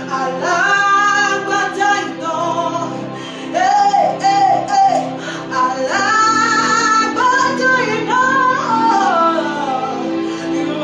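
A worship song: a voice sings a slow, gliding melody with vibrato over sustained accompanying chords.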